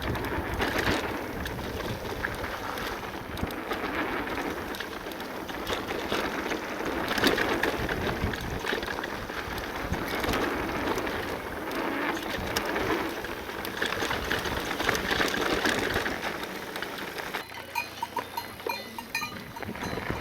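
Full-suspension e-mountain bike descending a dirt bike-park trail: tyres rolling and crunching over the ground, with the bike rattling and knocking over bumps. The noise drops near the end.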